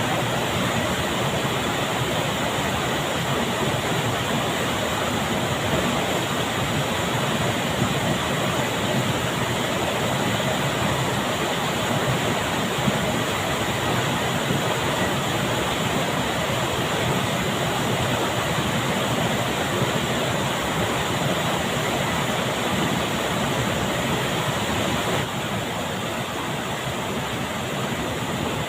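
River water rushing steadily, an even unbroken rush that drops slightly in level near the end.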